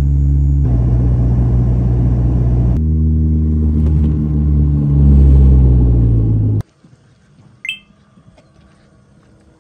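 Turboprop airliner's propeller and engine drone, heard close to the engine, changing abruptly in pitch and level a couple of times and loudest a little past the middle. It cuts off suddenly about two-thirds of the way through, leaving a quiet background with one brief high chirp.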